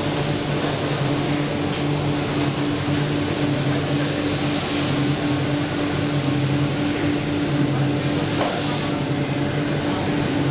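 WD-5500 automatic board-spraying machine running: a steady mechanical hum with an even low drone over a constant hiss.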